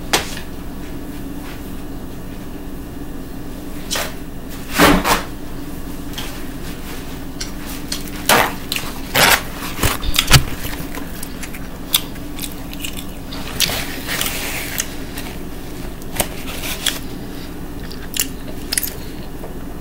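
Scattered clicks, knocks and rustles of things being handled at a dinner table, including a paper towel, with some eating sounds. A steady low hum runs underneath.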